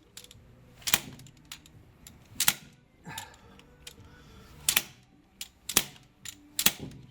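Sharp metallic clicks and taps of hand tools working on a seized diesel injector, coming one at a time at irregular intervals of roughly a second.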